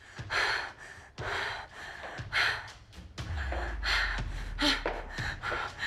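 A person breathing hard in fear, a string of quick gasping breaths. A low rumble comes in about halfway through.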